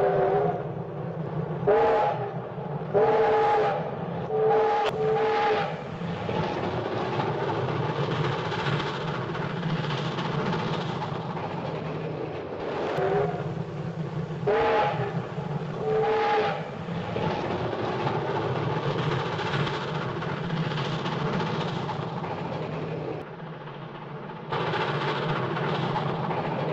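Steam train sound effect: the train running with steady noise throughout, under several short blasts of a multi-tone steam whistle. The blasts come in a cluster over the first six seconds and a second cluster around the middle.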